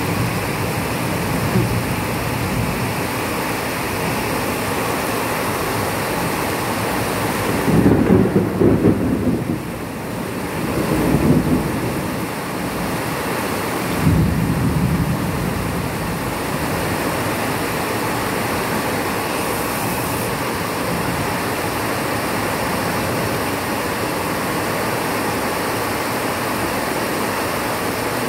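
Steady rain hiss from a thunderstorm, with rolls of thunder: a rumble about eight seconds in, a second swell about eleven seconds in, and a sudden crack about fourteen seconds in that rumbles away over a couple of seconds.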